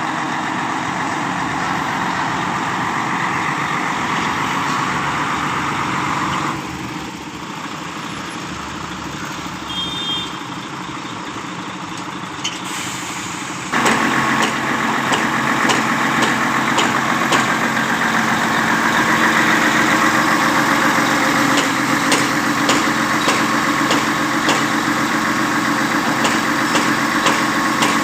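Diesel engine of a truck-mounted concrete pump running steadily, then jumping to a louder, fuller run about halfway through, with a string of light ticks over it.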